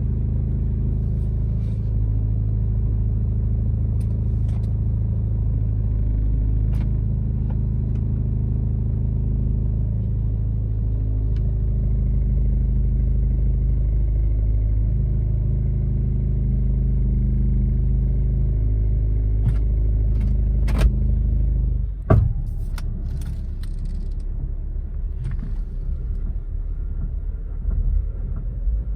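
Toyota Corolla Altis on the move: a steady low rumble with scattered sharp knocks, the knocking the car makes when moving. A loud knock comes about three quarters of the way through, after which the steady hum drops away and the rumble turns rougher.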